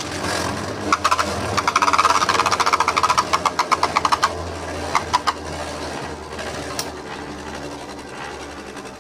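Beyblade spinning tops clashing and rattling in a plastic stadium: a fast run of clicks, about ten a second, for a few seconds, then a steadier whirring with a few scattered knocks.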